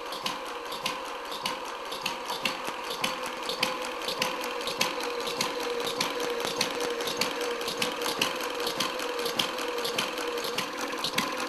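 Quarter-scale replica of a 1912 Red Wing hit-and-miss gasoline engine running just after starting: a rapid, even stream of light mechanical clicks over a steady hum.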